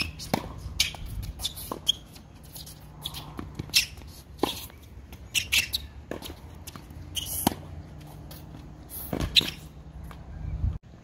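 Tennis rally on an outdoor hard court: sharp strikes of racket strings on the ball and ball bounces, a dozen or so cracks spread irregularly, mixed with brief squeaks of sneakers on the court surface. A faint steady low hum runs underneath, and the sound cuts off suddenly near the end.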